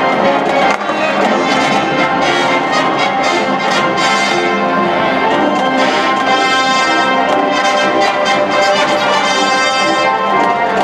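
High-school marching band playing with full brass (trumpets and trombones leading over the band), a brief dip in loudness about a second in, then punchy repeated accented chords.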